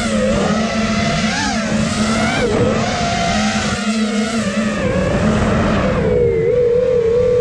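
Brushless motors and propellers of a 5-inch freestyle FPV quadcopter whining in flight, several tones wavering up and down in pitch as the throttle changes, over rushing wind noise.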